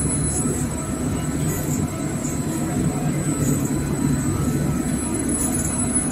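Toilet paper rewinding line running at speed, with its parent roll unwinding on a belt-driven stand: a steady mechanical rumble with a thin, high, constant whine over it.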